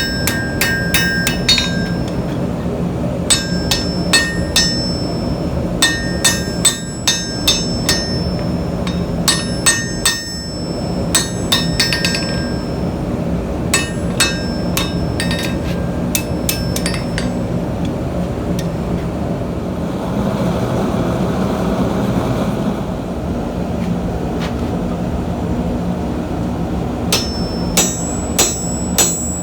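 A blacksmith's hammer striking hot steel on the anvil while forging a nail. The blows come in quick runs of several ringing strikes, separated by short pauses. There is a gap of about ten seconds without strikes before the hammering resumes near the end, over a steady low background noise.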